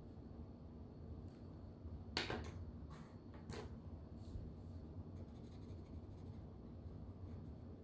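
A marker drawing on paper: a few short scratchy strokes between about two and four and a half seconds in, the first the loudest, as a small shape is coloured in.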